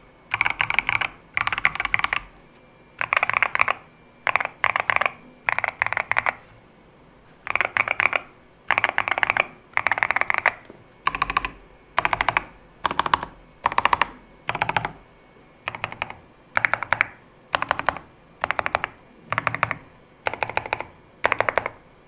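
Typing on a Skyloong GK75 mechanical keyboard: rapid runs of key clacks in short bursts of about half a second to a second, with brief pauses between them.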